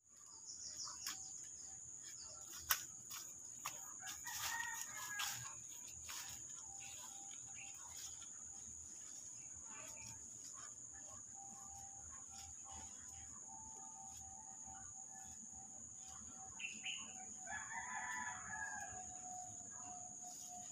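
A rooster crows twice, about four seconds in and again near the end, over a steady high-pitched insect drone, with one sharp click about three seconds in.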